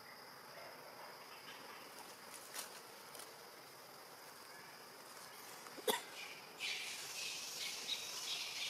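Forest ambience: a steady high insect drone, a single sharp short sound about six seconds in, then busy high-pitched chirping of birds and insects for the last couple of seconds.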